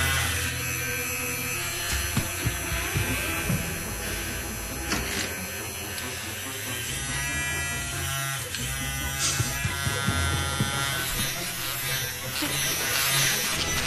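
A small electric motor buzzing steadily.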